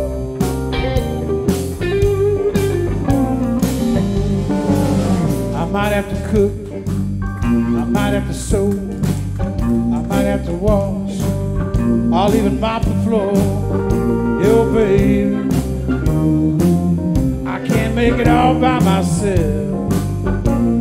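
A live blues band playing an instrumental passage: electric guitars, bass, drums and keyboard over a steady beat, with a lead line bending and wavering on top.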